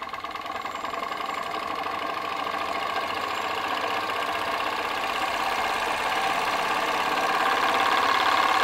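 PM Research glass Stirling engine speeding up once its belt load to the fan is taken off: its quick mechanical ticking gets faster and grows steadily louder as it nears full speed.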